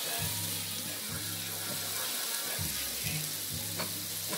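Beef hamburger patties frying in a pan of hot grease and steak sauce: a steady sizzling hiss.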